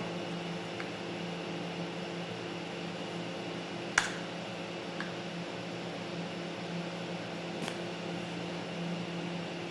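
Steady hum of a fan or running equipment, holding several even tones. A single sharp click comes about four seconds in, with a few faint ticks around it.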